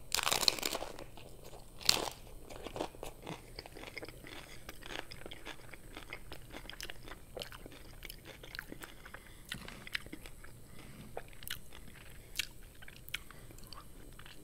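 A crisp hard-shell taco from an Old El Paso kit being bitten into with a loud crunch, a second sharp crunch about two seconds in, then steady crunchy chewing of the shell and filling.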